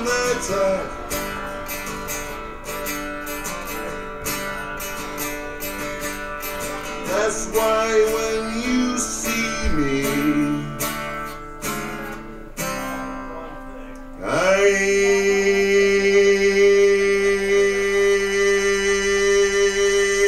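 Live music with acoustic guitar strumming. About two-thirds of the way through, a loud held note slides up into place and sustains steadily to the end.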